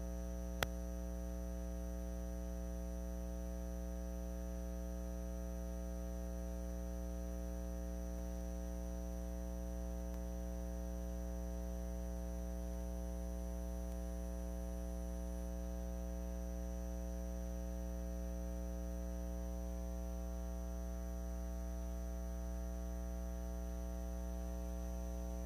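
Steady electrical mains hum with a buzz of many higher overtones, unchanging throughout; a single short click about half a second in.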